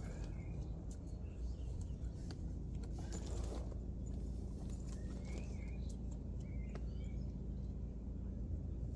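Steady low outdoor rumble with a few faint bird chirps and some light clicks of handling.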